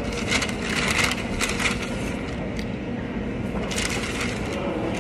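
Crackly crunching sounds come in short clusters: about half a second in, again under two seconds in, and near the end. A steady low rumble sits underneath.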